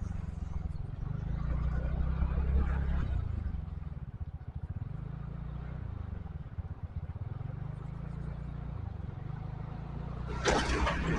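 Low, steady rumble of a vehicle on the move, rising and falling a little, with a loud burst of noise near the end.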